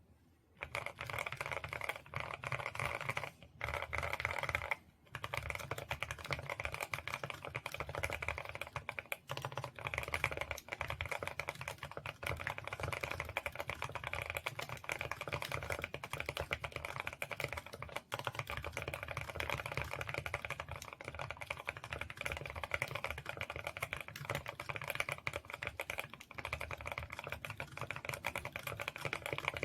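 Mechanical keyboard with Gateron Oil King linear switches being typed on steadily in fast, continuous keystrokes, with a low-pitched sound. There are two brief pauses a few seconds in.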